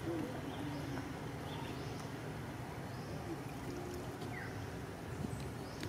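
Steady outdoor background noise, with faint short bird chirps now and then.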